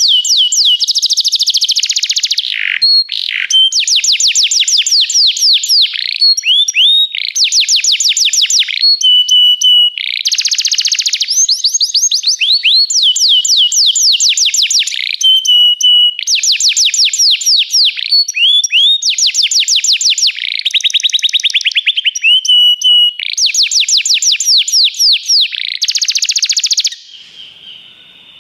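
Yellow Belgian canary singing a long, loud song of fast trills, each phrase a quick run of repeated rising and falling notes, broken by short steady whistled notes. The song stops abruptly about a second before the end.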